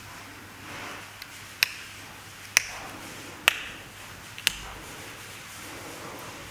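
Four sharp clicks or taps about a second apart, with soft rubbing and rustling between them.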